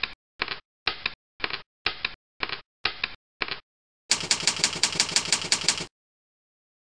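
Typewriter keystroke sound effect: eight separate clacks about half a second apart, then a quick run of about seven keystrokes a second for nearly two seconds.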